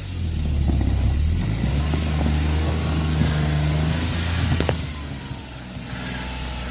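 A motor vehicle's engine running steadily under a hiss of road or wind noise, with a sharp click about four and a half seconds in.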